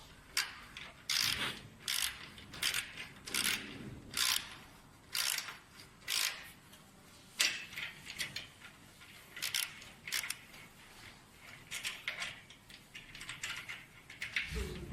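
Hand tools working on the machine's metal fittings: a string of uneven metallic clicks and scrapes, about one to two a second, like a ratchet being worked as a screw is turned in.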